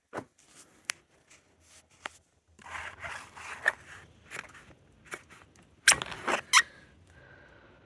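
Handling of a boxed set of spanners in a foam tray: packaging and foam scraping and rubbing, with scattered sharp clicks and clinks. The loudest are two clicks close together about six seconds in.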